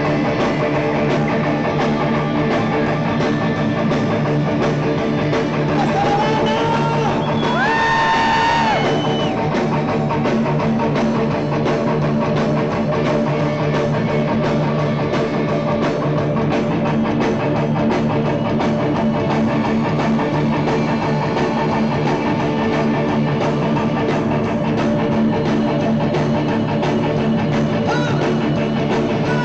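Live rock band playing an instrumental passage with electric guitars and a drum kit through a PA. About seven seconds in, a high held note slides up and back down over the band.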